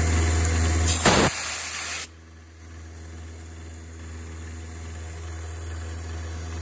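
Milling machine cutting 440C stainless steel with a solid carbide end mill under a hissing coolant mist spray, over a steady hum with several even tones. The hiss swells briefly about a second in and cuts off about two seconds in, leaving the quieter machine hum. The cut has a slight vibration, which the machinist puts down to the machine's head rather than the tool.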